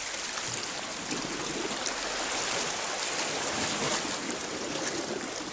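Small sea waves lapping and washing against porous coral rocks at the shoreline: a steady watery wash with no single standout splash.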